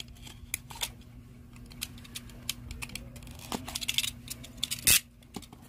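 Small pointed cutting tool slitting the seal sticker on a smartphone's cardboard retail box: a run of light clicks and scrapes, with one sharper snap about five seconds in.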